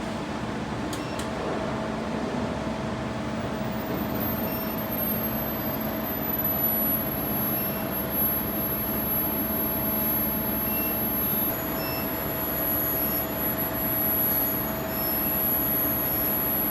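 SuperbMelt SPB-TB5 induction melting furnace running: a steady machine hum with a few constant low tones, joined about four seconds in by a faint, very high-pitched whine that slides down in pitch and then holds steady.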